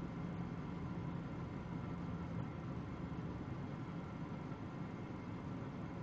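Steady low hum with a faint hiss inside a car's cabin, the background drone of the car.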